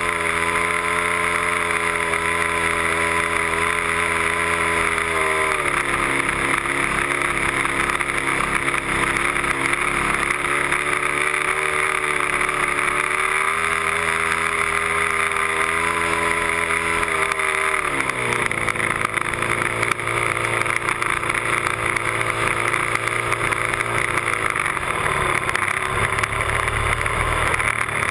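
A Cub airplane's engine running in flight, recorded on board close to the airframe, over a steady rush of air. Its pitch drops about five seconds in, climbs again near the middle, and drops lower about two-thirds of the way through as the throttle is changed.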